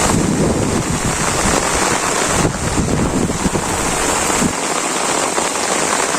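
Heavy rain falling steadily, with strong wind gusting on the microphone; the low wind buffeting drops away about two-thirds of the way through, leaving the rain.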